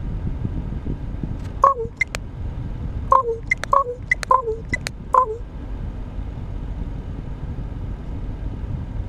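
Common raven giving a run of five short calls that drop in pitch, mixed with sharp knocking clicks, for about four seconds, over a steady low rumble.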